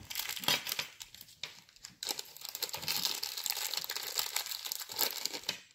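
Clear plastic bag crinkling as hands work it, in short bouts at first and then steadily from about two seconds in.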